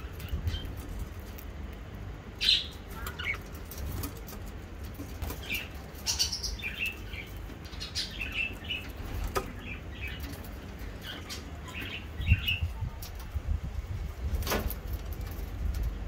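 Budgerigars giving short, scattered chirps, mixed with sharp clicks and low rustling as they climb the cage wire and nibble at the offered leaf.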